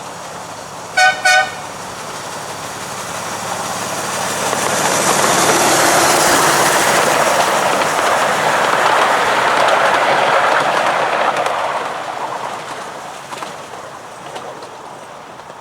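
A 7¼-inch gauge miniature railway locomotive gives two short toots about a second in. The train then passes, its running noise swelling to a peak and fading away over about ten seconds.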